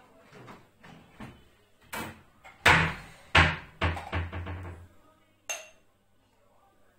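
Dishes and kitchen cupboard doors knocking and clattering as a dishwasher is unloaded. There are a few sharp knocks, the loudest about three seconds in, then a quick rattling clatter, and a single ringing clink of crockery near the end.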